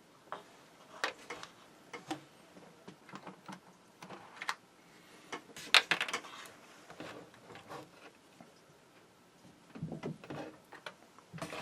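Scattered light clicks, taps and rustles of small tools and parts being handled on a workbench, with one sharper clack about six seconds in.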